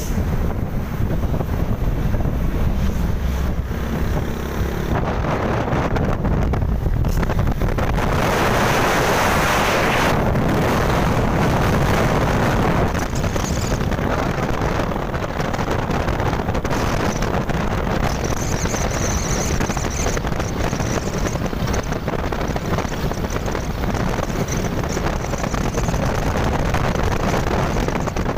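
Wind buffeting the microphone over the steady road and engine noise of a moving vehicle. It swells louder for a few seconds about eight seconds in.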